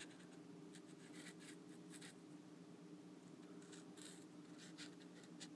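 Near silence: faint room tone with a steady low hum and a few scattered faint scratchy ticks.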